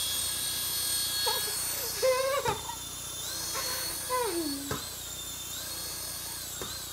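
Rotor and tiny electric motor of a hand-launched LED flying-ball toy helicopter whirring as it flies, its high whine rising and falling several times as the motor speed changes.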